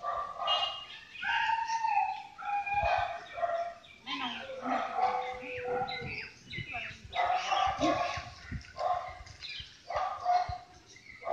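Dogs barking and yelping repeatedly in short calls.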